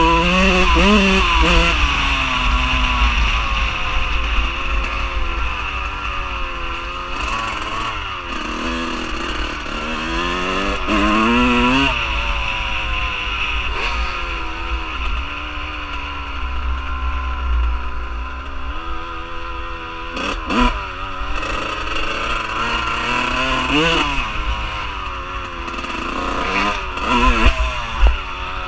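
Dirt bike engine heard from the bike itself while riding. It revs up and drops back again and again as it works through the gears, with wind rumbling on the microphone.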